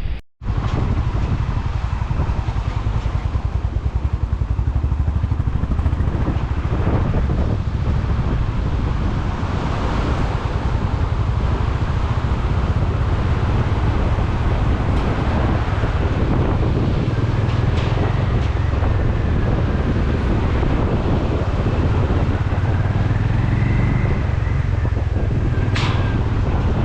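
Royal Enfield Bullet motorcycle engine running steadily on the move, with wind buffeting the microphone. A short sharp click comes near the end.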